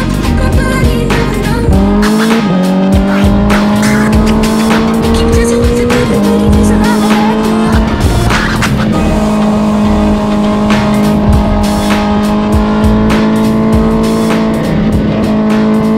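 Sport motorcycle engine heard onboard at speed on a race track, held at high revs. Its pitch climbs slowly and steps down slightly at a couple of points, typical of upshifts, over a steady rush of wind.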